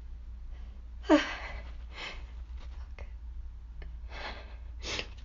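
A woman with a cold sneezes once about a second in, a breathy, slightly squeaky sneeze because she is losing her voice. It is followed by softer sniffs and breaths.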